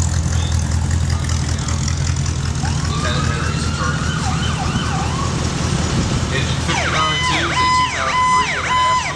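Diesel fire engines run at a slow parade crawl with a steady low rumble. A faint siren wails up and down a few seconds in, then a loud electronic siren cycles rapidly up and down for about two seconds near the end and cuts off.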